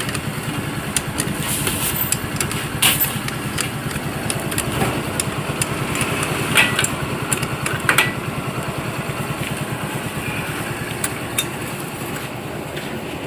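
A small engine runs steadily in the background. Over it come a few sharp metal clinks from a socket wrench tightening the clutch nut, at about three, six and a half and eight seconds in.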